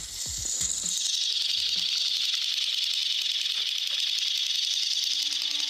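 Two battery-powered toy Thomas the Tank Engine trains on plastic track, their small motors whirring steadily at a high pitch as they run head-on into each other and push. The whir grows louder about half a second in and then holds level.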